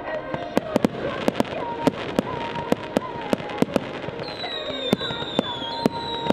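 Fireworks display: repeated sharp bangs of bursting shells, about a dozen, over steady whistling tones, with a higher wavering whistle joining about four seconds in.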